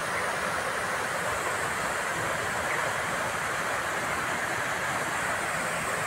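Water spilling over a small concrete weir into a shallow channel: a steady rush of falling water.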